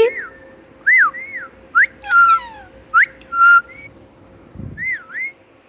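Pet parrot whistling: a string of about eight short, arched whistled notes, some rising and some rising then falling, with a pause before a last pair of notes near the end.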